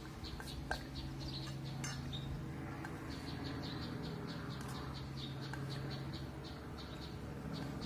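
An insect chirping in an even train of about five short chirps a second, breaking off briefly about two seconds in, over a steady low hum. A metal spoon clicks sharply against a stainless steel bowl just under a second in and again about two seconds in.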